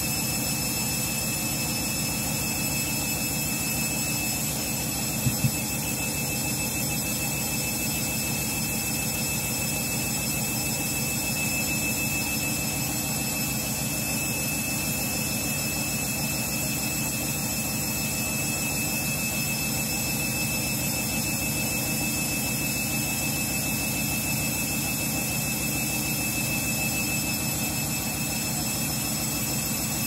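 Candy front-loading washing machine's drum spinning during an intermediate spin: a steady whir with high motor whine tones held throughout. Two quick clicks come about five seconds in.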